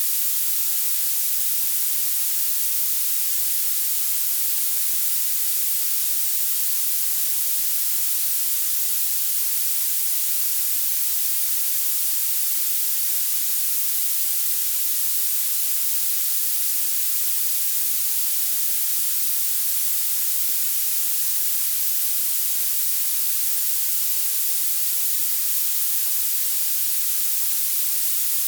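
Violet noise: a steady, unchanging hiss with its energy piled into the highest pitches and almost nothing in the bass.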